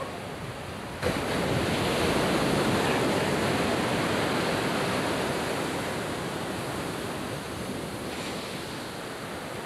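Surf on a beach: a wave breaks with a sudden rush about a second in, then washes back and fades slowly.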